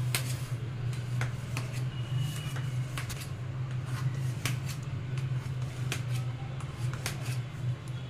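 Knife cutting through soft steamed dhokla in a steel tin, making scattered light clicks and scrapes where the blade meets the metal, over a steady low hum.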